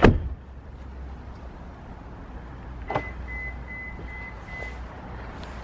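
A sharp knock, then about three seconds in a click followed by five short high electronic beeps, about two a second, over a steady low hum.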